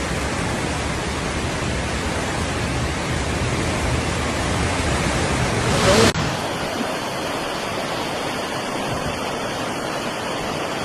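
Floodwater rushing in a torrent: a loud, steady roar with a deep rumble. About six seconds in it swells briefly, then changes abruptly to a thinner rush with little low rumble.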